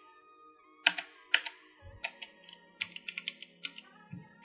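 Keys of a Yeyian Spark 2000 mechanical keyboard with red switches being pressed: about a dozen irregular key clacks, two spaced ones first, then a quicker run in the second half.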